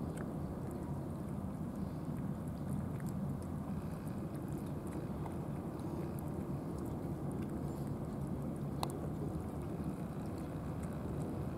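Cats eating canned wet food from plastic trays, with faint chewing and tray clicks and one sharper click about nine seconds in, over a steady low outdoor rumble.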